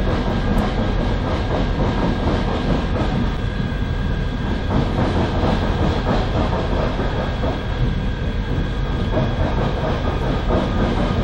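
Steady electric rail-vehicle noise at a level crossing: a constant low rumble with light clatter and a few steady whining tones, heard through the front cab of a stopped tram.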